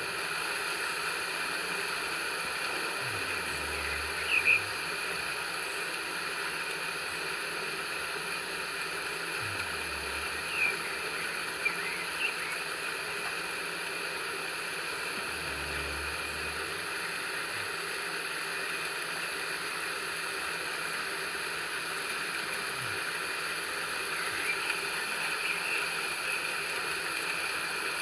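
Steady rain ambience with a few short bird chirps over it: a couple about 4 and 11 seconds in, and a small cluster near the end.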